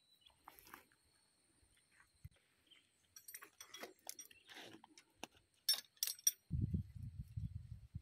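Metal clinks of bulldozer drive gears and a splined steel shaft being handled and set down, with a few sharp clinks about six seconds in. A low, choppy rumble follows near the end.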